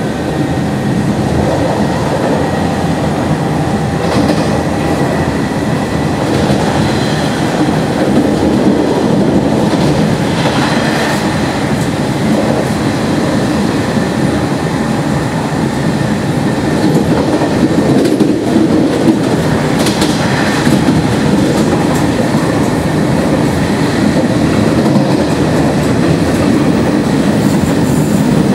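Nishitetsu 5000 series resistance-controlled electric train running at speed, heard from inside the passenger car: a steady rumble of wheels on rail, with a few louder clatters over rail joints about a third and two-thirds of the way through.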